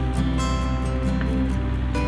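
Background music with plucked acoustic guitar over a steady low hum.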